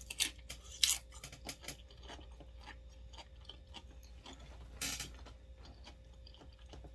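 Close-up chewing and crunching of fried wonton chips: a run of small crisp crackles, with louder crunches near the start, about a second in, and again about five seconds in.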